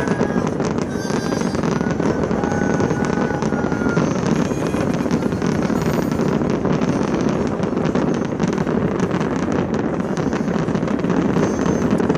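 A fireworks display: an unbroken barrage of overlapping bursts and crackles that blend into one continuous rumble. A couple of thin whistles are heard in the first few seconds.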